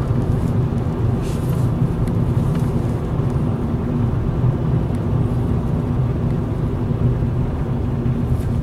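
Car engine and tyre noise heard from inside the cabin while driving in traffic: a steady low rumble with a faint engine hum.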